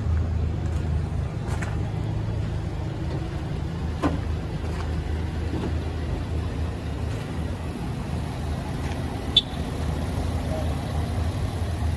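A 2015 Chevrolet Silverado 2500 HD's 6.0-litre gas V8 idling steadily, a low even hum, with a few light clicks and one sharp click about nine seconds in.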